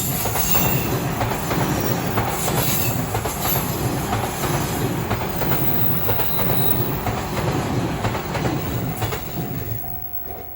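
JR East E233-series electric train passing over a level crossing at speed: a loud steady rumble with the clack of wheels over rail joints. Near the end the train noise falls away and the crossing's electronic warning bell can be heard ringing again.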